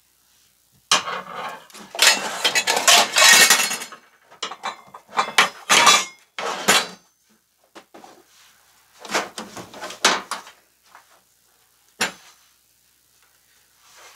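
Metal kitchen utensils and pans clattering and clinking in irregular bursts, loudest early on and ending with a single sharp knock near the end: someone rummaging through kitchen gear in search of a pastry crimper.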